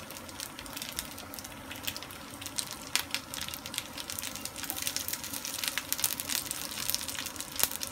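Frozen gyoza frying in a nonstick skillet: a steady sizzle with frequent small crackles and pops as the last of the water cooks off and the bottoms brown.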